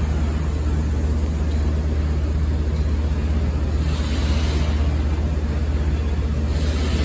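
Steady low-pitched hum of powered-up industrial machinery, with a faint rushing noise over it that swells briefly about four seconds in and again near the end.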